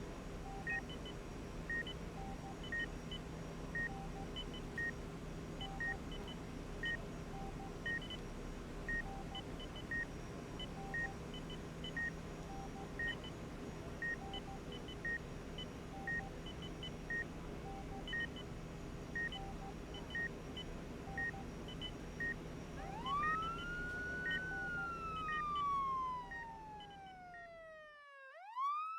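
Hospital patient monitor beeping about once a second over a steady room hum. Late on, an emergency vehicle siren rises and slowly falls in a long wail. Near the end the background hum cuts out suddenly, and the siren starts a new rise.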